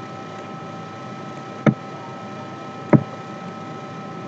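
Two short, sharp computer mouse clicks about a second and a quarter apart, over a steady microphone hiss with a faint steady whine.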